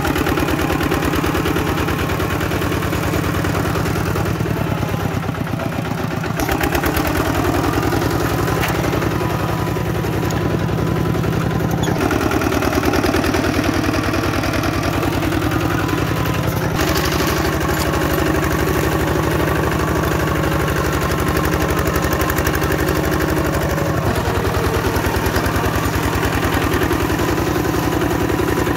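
A Kubota bulldozer's diesel engine running steadily under load, its tone shifting abruptly several times.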